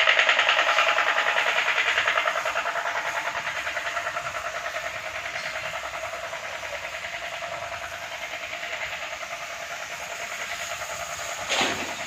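High-pressure washer pump running with a rapid, even pulsing beat, under the hiss of the water jet from the spray gun. It grows fainter over the first few seconds. A short knock comes near the end.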